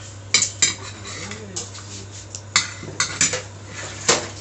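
Metal utensils clinking and knocking against pots and dishes: about six sharp strikes at irregular intervals, over a steady low hum.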